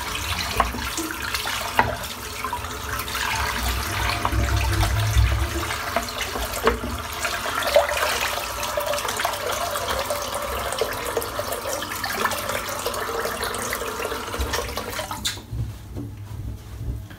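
Bathroom tap running into a sink, with a few small knocks and clicks over it; the water is turned off about fifteen seconds in.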